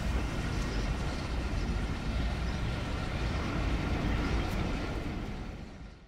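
Passenger carriages of a passing train rolling by close at hand, a steady rumble of wheels on the rails with a few faint clicks, fading away in the last second.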